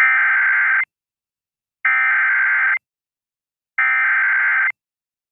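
Emergency Alert System SAME digital data bursts: three identical harsh, buzzing bursts, each just under a second long and about a second apart, the coded header that opens an alert broadcast.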